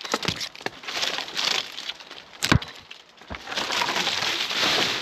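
Walnut branches cracking and snapping, with one sharp loud crack about halfway through, then a long rush of twigs and leaves as the limb crashes down through the crown, breaking smaller branches on the way.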